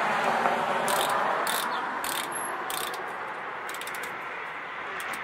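Knox Handroid motorcycle gloves being worked on and their wrist closures fastened: a few short scratchy rasps and a quick cluster of clicks, over a steady rushing background.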